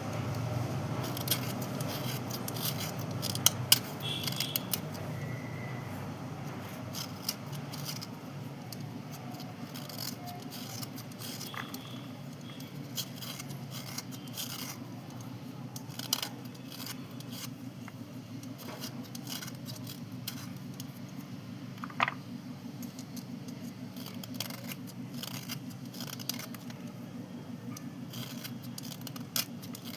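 Slate pencils being scraped and rubbed, with scattered sharp clicks as the pieces knock together. A steady low hum runs underneath.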